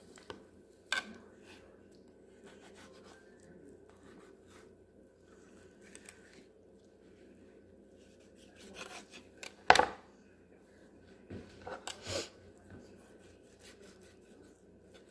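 Knife cutting a trout fillet away from the backbone on a plastic cutting board: faint slicing and handling with a few sharp knocks, the loudest about ten seconds in.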